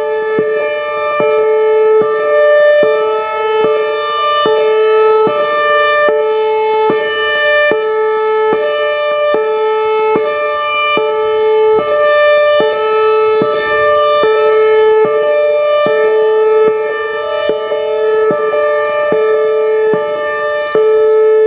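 Whelen Vortex electronic outdoor warning siren sounding its hi-lo tone: two pitches alternate, switching about every 0.8 seconds.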